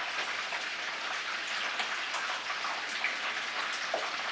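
Chicken pieces sizzling steadily in hot oil in a frying pan, with small crackles and pops.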